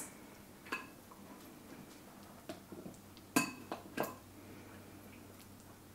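Metal tongs clinking and tapping against the slow cooker's crock and a plate while carrots are served: a handful of light, short clinks, the clearest about three and a half and four seconds in.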